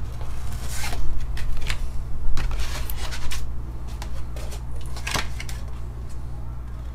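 Cardboard packaging and a rigid clear plastic photo holder being handled. A series of short rustles and scrapes as the photo is slid out of its cardboard folder, over a steady low hum.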